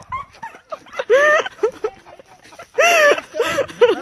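A dog making a run of short vocal calls, each rising and falling in pitch. The two loudest come about a second in and about three seconds in.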